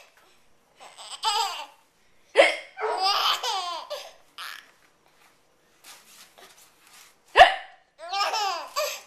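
A woman hiccups sharply twice, about two and a half seconds in and again near the end. Each time a baby answers with a burst of high-pitched laughter, and there is a shorter laugh about a second in.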